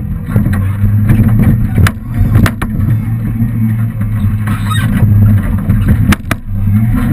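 Small engine of a child-sized Land Rover replica running close by with a steady low hum that rises and falls, broken by a few sharp knocks and rattles about two seconds in and again near the end.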